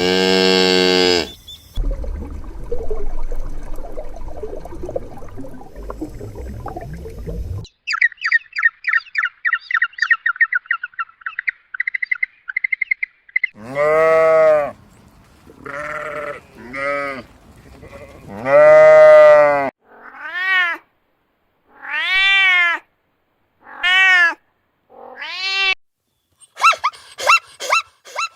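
A series of animal calls from different clips: a rapid run of high chirps, then repeated cat meows, each rising and falling, coming faster and shorter near the end.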